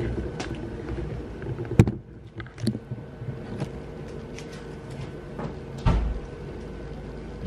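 A few sharp knocks and clicks, the loudest about two seconds in and a dull thump about six seconds in, over a steady background hum.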